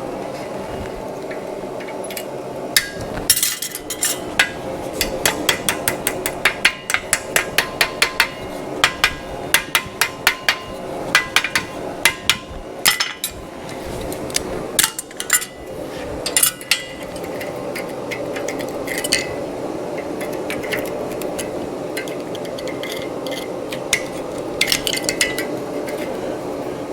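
Hammer blows on hot steel link stock being wrapped around a forming jig: quick runs of sharp strikes, about three a second, for the first two-thirds or so, then only a few scattered ones. Under them runs the steady roar of a gas forge.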